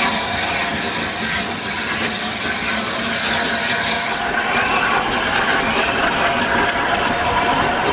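Steam locomotive hauling a rake of passenger coaches past: a steady rush of steam hiss and train running noise, with no distinct pauses.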